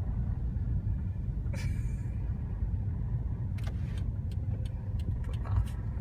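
Steady low rumble of a car driving slowly, heard from inside the cabin, with a few brief clicks.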